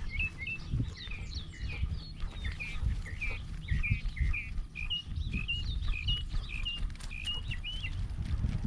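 Small birds chirping, a quick run of short high chirps several times a second, over a low rumbling and knocking from the dog-mounted camera rubbing as the dog moves.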